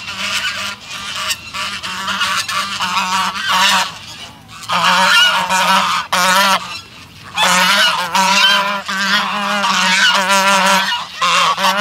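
A flock of domestic geese honking, many calls overlapping, close and loud from about five seconds in, with a brief lull near seven seconds.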